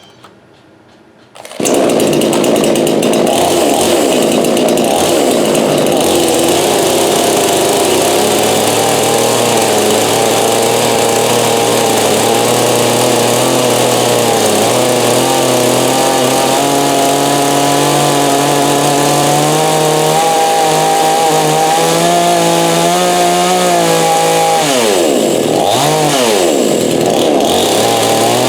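Coocheer 58cc two-stroke chainsaw engine running steadily on its first start, coming in abruptly about a second and a half in. Near the end its pitch drops sharply and picks back up twice.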